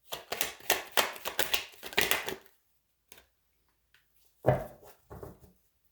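Tarot cards being handled: a quick run of crisp flicking clicks for about two and a half seconds. About four and a half seconds in there is a brief low voice sound.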